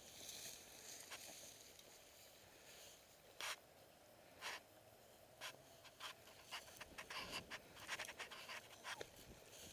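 Faint, scattered clicks and rustles over near silence. They come about once a second at first, then crowd together near the end.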